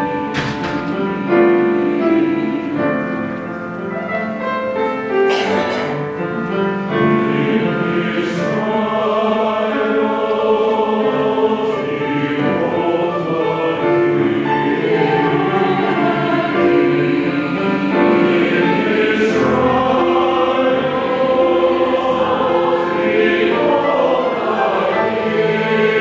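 A large mixed choir singing a four-part SATB anthem based on an African-American spiritual, sight-read together from sheet music, with sustained chords throughout.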